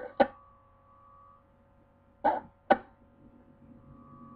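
Scanner radio between transmissions: a faint steady hum, a short sharp burst just after the start, and two brief bursts about two seconds in, like squelch tails or clipped fragments of transmissions.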